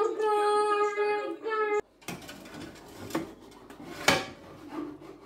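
A child's voice sings a held note for nearly two seconds, then breaks off. A metal pizza pan is then pushed into a countertop oven, scraping on the rack with a few sharp knocks.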